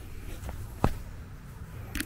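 Footsteps on a grass lawn: a sharp step about a second in and another at the end, over a steady low rumble.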